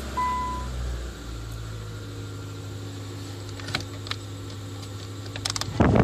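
A car dashboard chime beeps once near the start, then the heater blower and the running car hum steadily. Near the end a loud rush of air starts as the blower blows through the vents during a test of the newly repaired vent selector.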